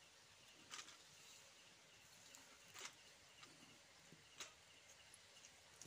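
Near silence with a faint hiss, broken by three soft brushing strokes about 1, 3 and 4.5 seconds in: hands scooping chopped drumstick leaves from an aluminium pot.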